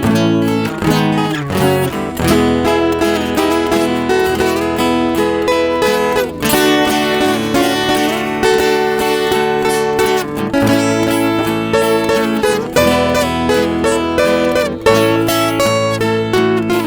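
Instrumental break of a sertanejo ballad: acoustic guitars plucked and strummed, playing the melody between sung verses.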